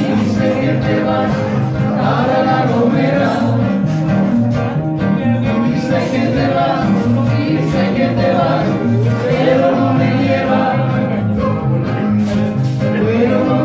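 Live music: two classical guitars strummed together with a voice singing over them.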